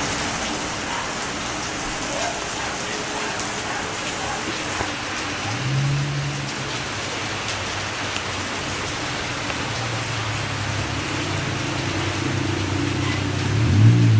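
Steady rain falling, with individual drops ticking on a surface. A low hum comes in briefly about six seconds in and again from about ten seconds, growing louder near the end.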